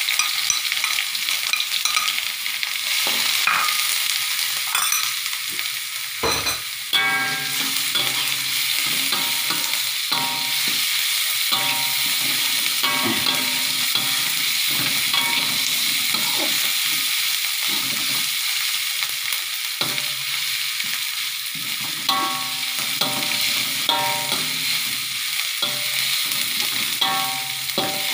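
Spice paste of shallots, garlic, galangal, ginger and lemongrass frying in hot oil in a metal wok, sizzling steadily, with a metal ladle stirring and scraping against the wok now and then and one knock about six seconds in.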